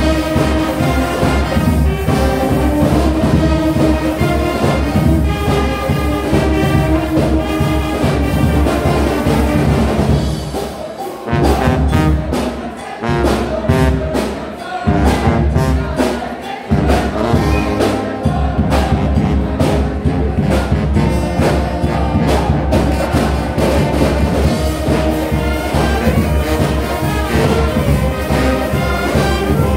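Brass and wind band playing, with tubas, euphoniums, saxophones and trumpets over a steady beat. There are a few brief stops in the playing about a third of the way through.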